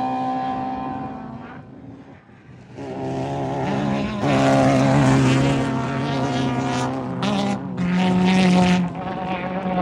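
Off-road race vehicle engines going past. One fades away over the first two seconds, then another comes up from about three seconds in and runs loud, its engine note rising and falling as it revs.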